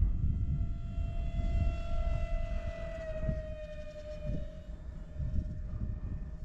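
Electric motor and propeller of an FX9672 RC airplane in flight: a steady high whine that drops slightly in pitch about three seconds in, under heavy wind rumble on the microphone.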